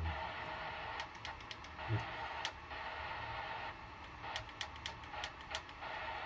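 CB radio hiss from the set's speaker, with runs of sharp clicks from the radio's controls about a second in and again between about four and five and a half seconds, as the set is stepped through its channels for an SWR check.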